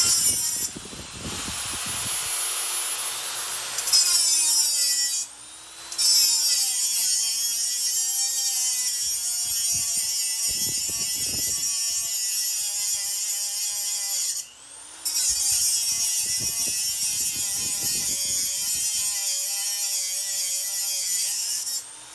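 Small high-speed rotary tool grinding metal, its whine rising and falling with the load, stopping briefly twice: grinding excess silver solder off a soldered bolt.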